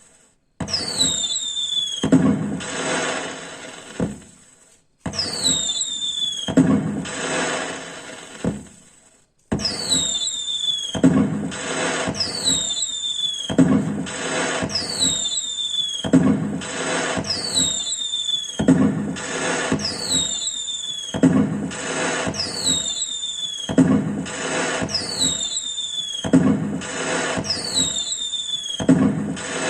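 Firecracker sound effect played through a speaker: a descending whistle followed by crackling bangs, repeating about every 1.3 s. It cuts out briefly a few times in the first ten seconds, then loops steadily.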